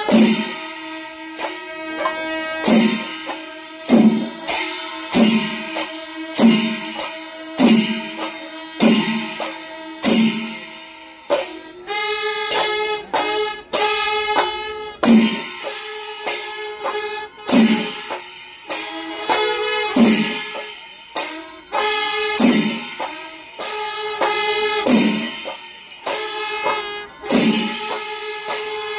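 Kerala chenda melam, a temple percussion ensemble: chenda drums beating heavy strokes about once a second over steady clashing of ilathalam cymbals, with held notes from the wind instruments.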